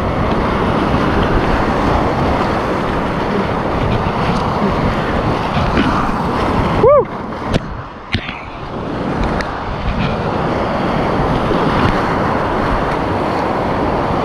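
Whitewater rapids rushing steadily around a kayak running down a steep rapid. About halfway through the rush goes briefly muffled and quieter, with a short tone that rises and falls.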